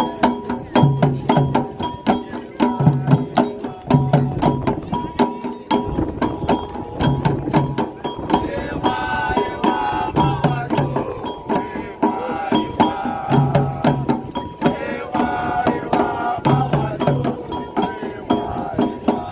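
Candomblé toque: hand drums beating a repeating low pattern under a fast, steady ticking beat, with voices singing a chant from about halfway in.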